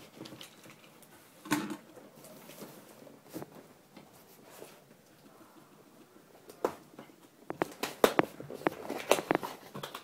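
Cardboard shipping box being handled and opened: a single thump about 1.5 s in, then a quick run of cardboard knocks, scrapes and rustles in the last few seconds as its end flap is pulled open.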